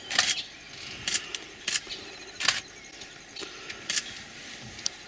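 Camera shutter clicks, about half a dozen at irregular intervals.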